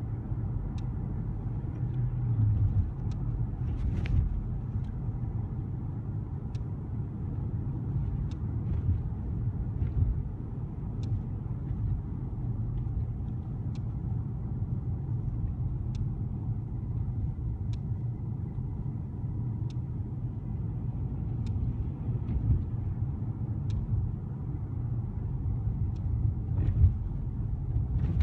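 Car driving, heard from inside the cabin: a steady low rumble of engine and road noise, with faint light ticks every couple of seconds.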